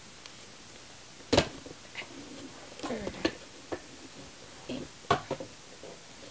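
Hard plastic toy figures being handled and moved about: a few scattered knocks and clicks, the loudest about a second and a half in.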